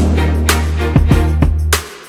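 Background funk-style music with a steady beat and a heavy bass line, which drops out near the end.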